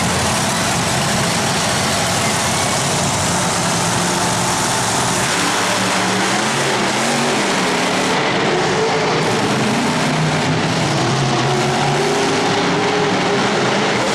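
Monster truck supercharged V8 engines revving, the pitch climbing and falling repeatedly, most clearly from about five seconds in, over a loud steady arena din.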